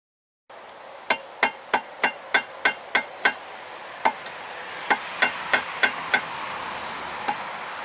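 Rubber mallet striking the lower unit of a 1996 Mercury 115 hp two-stroke outboard to knock the stuck gearcase loose from the midsection. A quick run of eight even blows is followed by a single blow, a run of five more, and one last blow near the end, each with a short ring.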